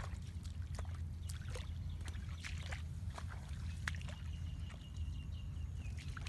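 Bare feet wading through shallow muddy water, with scattered short splashes and squelches over a steady low rumble. A faint high steady tone comes in about two thirds of the way through and fades near the end.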